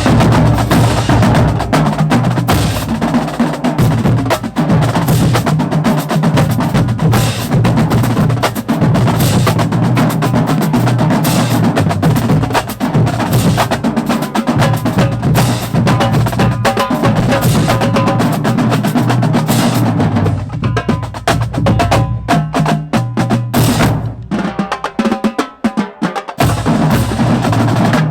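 Marching band drumline playing a fast, dense cadence on snare and bass drums. About twenty seconds in, the playing breaks into sparser, separated hits with short pauses.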